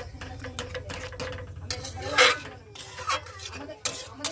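A metal spatula scraping and knocking against a metal pan while stirring thick dal into the fried masala, in a run of uneven strokes with the loudest clatter about halfway through.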